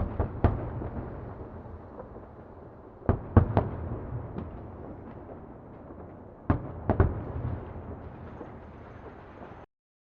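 Explosion sound effect: three clusters of sharp bangs about three seconds apart, with scattered crackling and low rumble between them, like distant fireworks or blasts. It cuts off shortly before the end.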